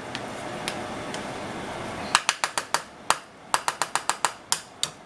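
Butter melting in a hot nonstick frying pan as it is stirred with a spoon: a steady low hiss, then, a little past two seconds in, a quick irregular run of about a dozen sharp pops and clicks.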